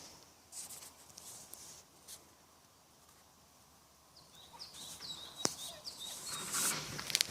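Soft rustling, then a run of short high chirps from a small bird starting about four seconds in, with a single sharp click partway through.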